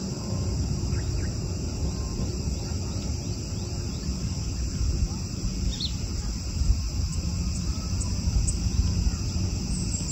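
Outdoor hillside ambience: a steady high-pitched insect chorus over a low, uneven rumble, with a few brief high chirps about six and eight seconds in.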